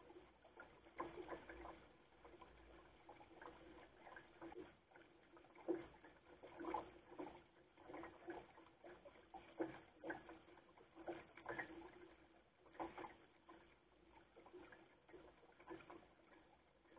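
Faint, irregular slaps and splashes of lake water against a Goat Island Skiff's hull as it sails, a few a second, the loudest about six seconds in.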